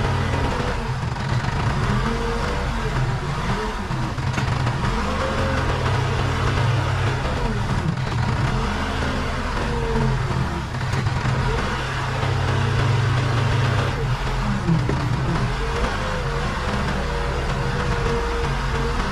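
Case 580 Super K backhoe's diesel engine running under load while it works. Its pitch rises and falls every few seconds as the hydraulics are worked.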